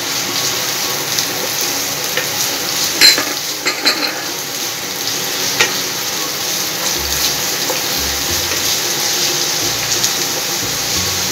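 Shredded cabbage and carrot sizzling in hot oil in a non-stick wok, stirred with a wooden spatula. The frying hiss is steady, broken by a few sharp clacks of the spatula against the pan, the loudest about three to four seconds in.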